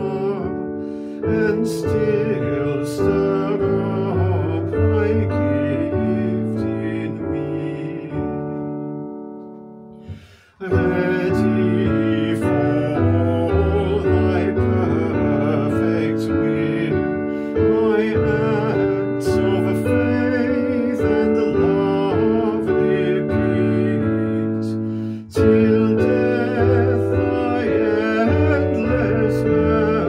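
Upright piano playing a hymn tune in full chords. Near ten seconds in, a verse ends on a held chord that fades almost to nothing, and the next verse starts straight after.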